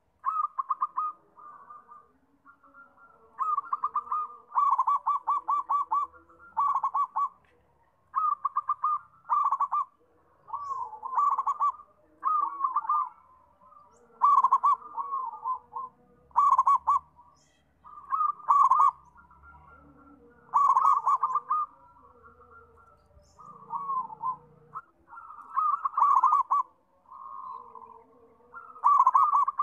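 Zebra dove (perkutut) cooing: short phrases of rapid staccato notes, repeated every second or two.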